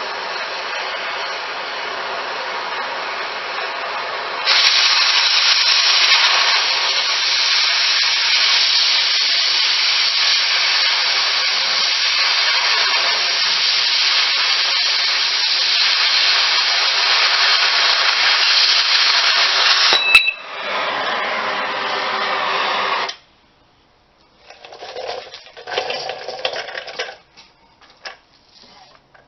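A power tool working steel runs with a steady, noisy whir, getting louder about four seconds in. It cuts off abruptly a few seconds after a sharp click, and a few short clatters of steel pieces follow.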